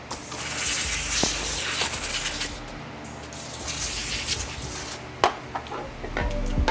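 Aerosol brake cleaner spraying in a hiss of about two and a half seconds, followed by a few light metallic clicks and taps from the brake parts.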